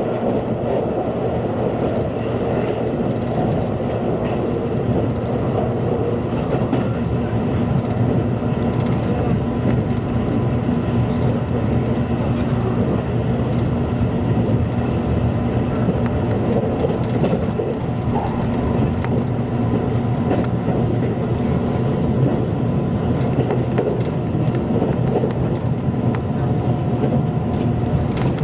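Steady running noise of a train at speed heard from inside the passenger car: a continuous low rumble of wheels on the track, with a faint steady high tone above it.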